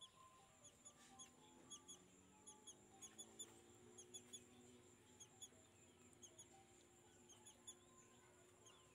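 Faint, quick, high squeaky chirps in irregular clusters of several a second, over faint held musical tones.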